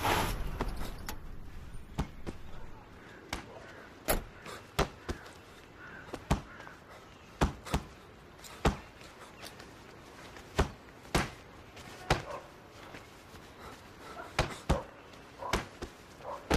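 A series of sharp knocks at irregular intervals, roughly one a second, over a quiet background, after a burst of noise that dies away in the first half-second.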